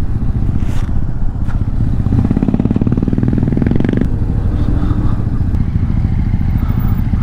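Motorcycle engine running at low speed. It pulls harder for a couple of seconds, then eases off sharply about four seconds in as the bike slows.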